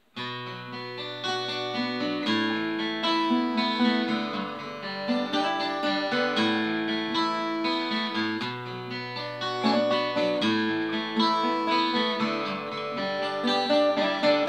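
Two acoustic guitars playing together without singing, picked and strummed chords with the bass note changing about every two seconds: the opening instrumental of a song before the vocals come in.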